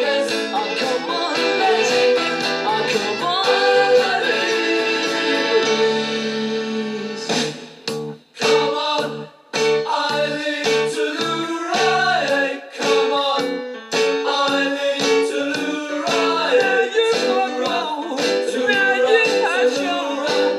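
Background music: a song with a singing voice over guitar, briefly dropping out twice near the middle.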